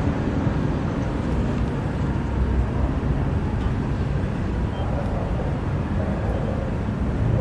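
Wind buffeting the microphone: a steady low rushing noise, with no distinct claps or bangs.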